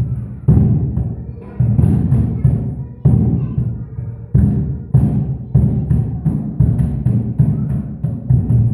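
Homemade drums of stacked tyres struck with sticks in an uneven beat of low thumps, about two a second, each dying away before the next.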